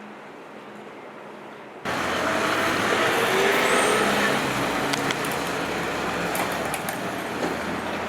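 Outdoor traffic noise, a steady rush that jumps suddenly louder about two seconds in, with a few faint clicks later on.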